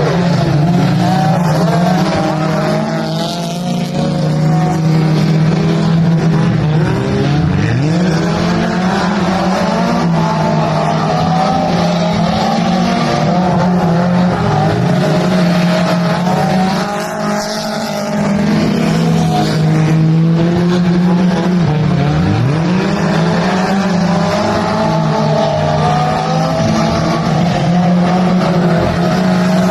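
Mini stock race cars running hard on a dirt oval, engines held at a steady drone with pitch that dips and climbs every few seconds as cars ease off into the turns and go back on the throttle.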